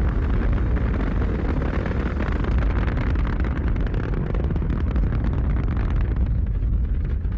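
Space Shuttle rocket engines firing at launch: a loud, steady, deep rumble laced with crackle, its upper hiss thinning near the end.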